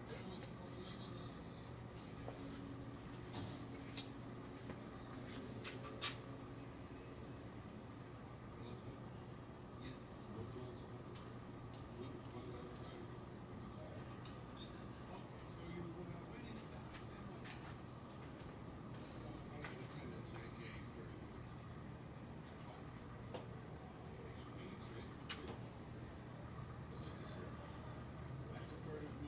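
A cricket singing a continuous, high-pitched trill of rapid, even pulses, with a couple of faint clicks a few seconds in.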